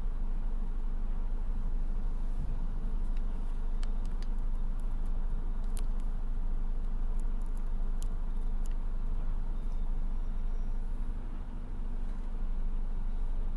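Diesel engines of hydraulic excavators and dump trucks running: a steady low rumble, with a few faint sharp clicks in the middle.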